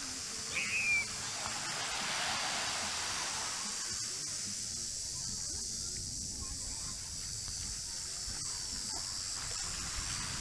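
Small waves washing onto a sandy beach, with one swell of surf a couple of seconds in, over a steady high-pitched insect drone. A single short falling bird call about half a second in.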